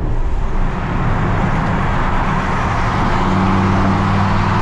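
Car at highway speed: steady wind and road noise, with a low engine drone that grows stronger about three seconds in.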